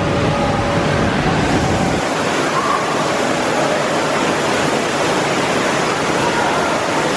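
Steady rush of running and falling water, a constant loud hiss from the water park's slides and cascades. A low rumble underneath falls away about two seconds in.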